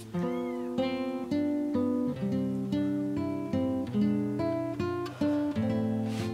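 Background acoustic guitar music, a plucked melody. Near the start a newborn kitten gives one short mew, rising then falling in pitch.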